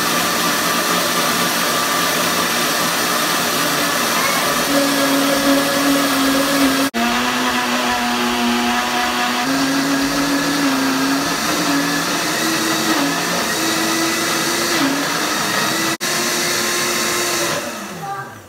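Mondial electric blender running continuously, emulsifying eggs, lemon juice, salt and oil into mayonnaise as oil is added little by little, its motor hum wavering slightly in pitch. Near the end it is switched off and the motor winds down with a falling tone.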